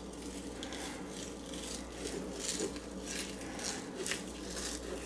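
Fillet knife scraping and sawing between the skin and flesh of a bluefish fillet on a cutting board while skinning it, as a series of short, soft rasping strokes.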